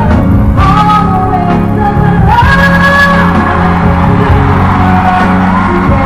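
Female pop singer belting a power ballad live over band accompaniment, the melody climbing about two seconds in to a long held high note.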